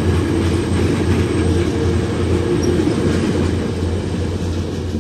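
VIA Rail passenger cars rolling past at speed, a steady, loud rumble of steel wheels on the rails that eases off near the end as the last car goes by.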